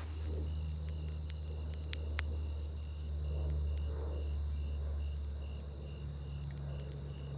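Crickets chirping steadily, about two chirps a second, over a low steady rumble, with a few sharp clicks about two seconds in.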